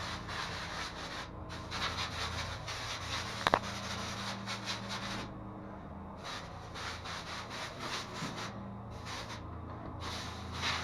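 Rubbing, sanding-like strokes, dense and repeated with a few short pauses, over a low steady hum; a single sharp click about three and a half seconds in.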